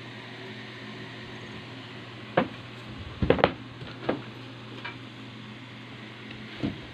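A few scattered key clicks from the A4Tech KRS-85 membrane keyboard, with a quick pair of louder clicks near the middle, over a steady background hum.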